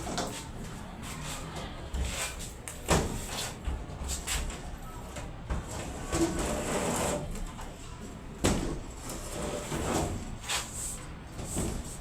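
Scattered knocks, clicks and scraping from handling materials during electrical installation work, with two sharper knocks about three seconds and eight and a half seconds in.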